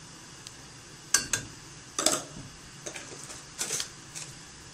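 A metal spoon clinking sharply against cookware about half a dozen times at irregular intervals, starting about a second in, as a teaspoon of salt is added to the pan.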